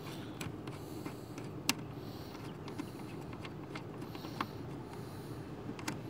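A few sharp, scattered metallic clicks of a combination wrench against a seat belt anchor bolt as the bolt is worked loose, the loudest a little under two seconds in, over a faint steady low hum.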